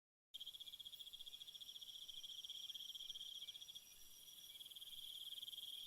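Crickets trilling: a fast, even pulsing chirr that cuts in suddenly out of dead silence, with a second, fainter trill higher up.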